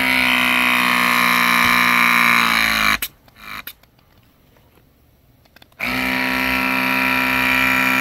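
Greenlee battery-powered hydraulic crimper's motor and pump running twice, each time for about three seconds, as it presses a crimp into an H-tap connector. Its pitch sags slightly near the end of each run as the pressure builds, then it cuts off.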